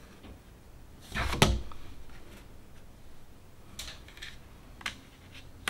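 Thick matte oracle cards being handled: a card slides and is set down with a brisk swish about a second in, followed by a few lighter taps and scrapes of cardstock against the deck.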